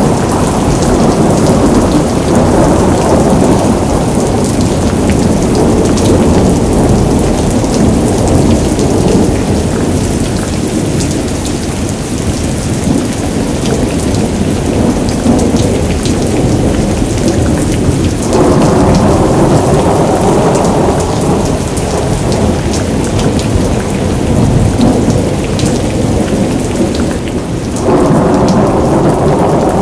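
Heavy rain pouring down in a thunderstorm, with thunder rumbling and many sharp ticks of drops or hailstones striking. The downpour suddenly grows louder and fuller about eighteen seconds in, and again near the end.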